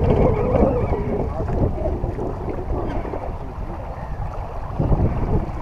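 Wind buffeting the microphone over the rush of water along a racing sailboat's hull, an uneven low rumble.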